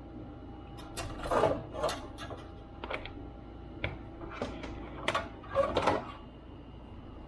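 A laptop being handled on a workbench: a run of sharp clicks and knocks, irregular and close together, over a faint steady hum.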